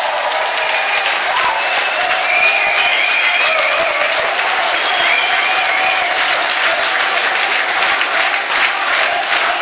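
Large crowd of fans applauding steadily, many hands clapping at once, with some voices calling out and cheering over the clapping.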